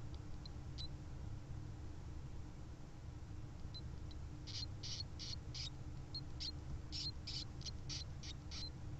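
Newborn Djungarian hamster pups squeaking in the nest, calling for their mother. There are a few faint squeaks at first, then from about halfway through a quick run of short, high-pitched squeaks, two or three a second. A steady low hum runs underneath.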